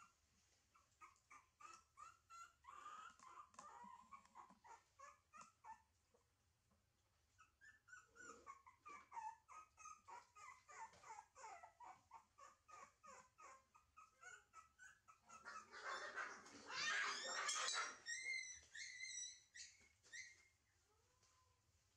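Puppy whimpering over and over in short, high whines, about two or three a second, with a louder stretch of cries about three-quarters of the way through.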